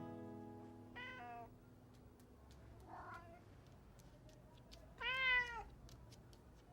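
Ginger cat meowing: a short falling meow about a second in, a faint one near three seconds, and a louder, longer meow at about five seconds, the meows of a hungry cat asking for food.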